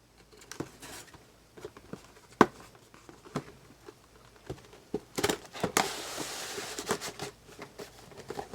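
A cardboard toy box being opened: scattered clicks and crinkles of handled cardboard and packaging, then about two-thirds of the way in a longer tearing rasp as the tear strip is pulled.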